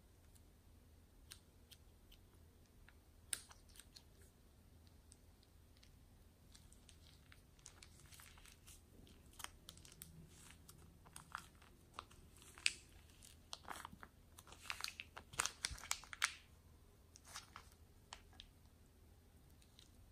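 Plastic piping bag crinkling as it is squeezed, pushing foam beads out into clear glue: faint scattered crackles and clicks, thickest in the middle.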